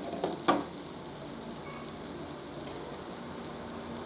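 Potato and egg omelette sizzling in olive oil in a pan on low flame, a steady crackle with fine ticks. Two short knocks about half a second apart near the start as the pan's lid is lifted.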